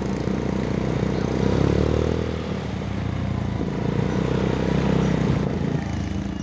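Motorcycle engine running steadily on the move, easing off briefly about two seconds in.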